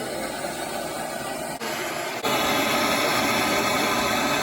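Steady hiss of water rushing through a water heater's recirculation plumbing. It dips briefly, then grows louder a little over two seconds in.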